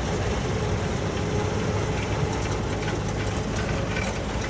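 Combine harvester at work in wheat: a steady run of engine and threshing noise with a low hum and a faint constant whine.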